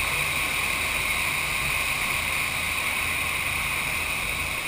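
Steady rush of the FlowRider's sheet of water streaming up the sloped riding surface, a constant even hiss with a low rumble beneath.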